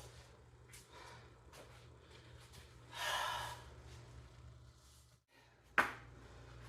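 A person's long breathy sigh about three seconds in, over a low steady hum, then a single short sharp click near the end.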